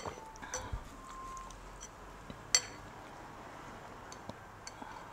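Eating utensils clinking against a bowl while eating noodles: a few sharp clinks, the loudest about two and a half seconds in.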